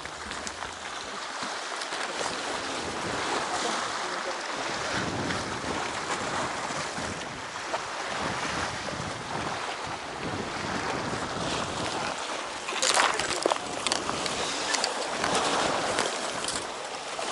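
Sea surf washing and breaking against shore rocks, with wind buffeting the microphone. About three-quarters of the way through comes a short cluster of sharp knocks and clatter, the loudest moment.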